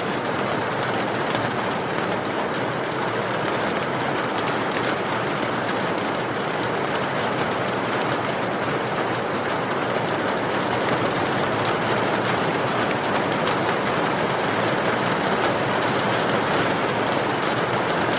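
Steady rain with a wood fire crackling in a fireplace: a constant even hiss scattered with small pops.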